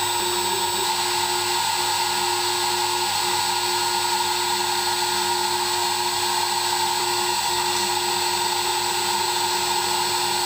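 High-speed milling spindle running steadily at about 24,000 RPM while an engraving cutter mills a copper-clad circuit board, with a vacuum pump running alongside. The sound is an even whine over a steady hiss.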